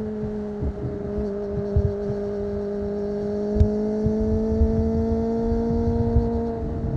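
Kawasaki ZX-25R's inline-four engine through an aftermarket Akrapovic exhaust, heard from the bike while riding at steady revs. The pitch creeps slowly higher, then changes near the end.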